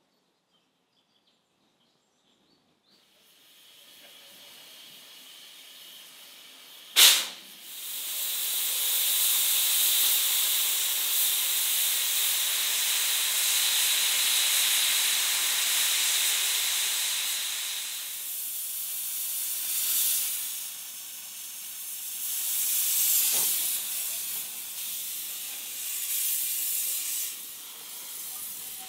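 Hunslet-built 1940 narrow-gauge steam locomotive Chaka's Kraal No. 6 hissing steam, with steam escaping from its cylinder drain cocks. The hiss is loud and steady for about ten seconds, then comes in uneven gusts. It starts after a few seconds of near silence and a single short, sharp blast about seven seconds in.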